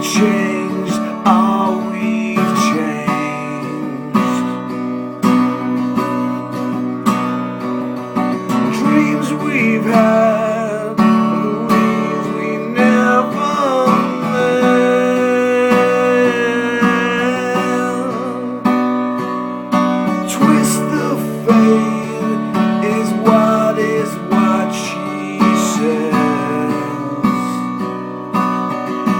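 Strummed acoustic guitar playing an instrumental passage of a slow song, steady chords with a melody line over them.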